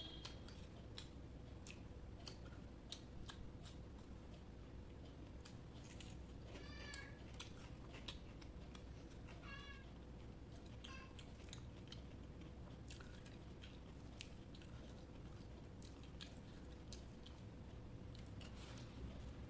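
Faint chewing and wet mouth clicks of someone eating rice and curry. Three short high-pitched calls come through in the middle.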